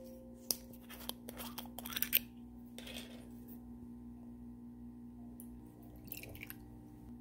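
Soju poured from a glass bottle into a small drinking glass, a brief splashing hiss near the end, after a few sharp clicks and crackles of bottles and tableware being handled early on. A steady low hum runs underneath.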